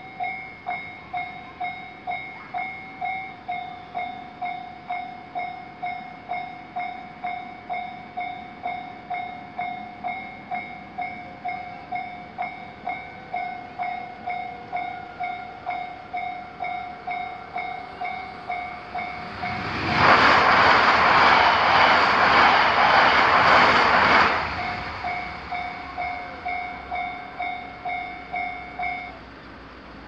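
Japanese railway level-crossing alarm bell ringing, a single-pitched electronic ding repeating a little under twice a second. About two-thirds of the way in, a train passes over the crossing for about five seconds, a loud rush with wheel clatter that all but drowns the bell. The alarm stops about a second before the end.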